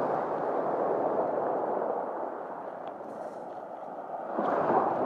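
Small sea waves washing onto a pebble shore with a steady rushing hiss that eases off, then a wave surges louder about four and a half seconds in.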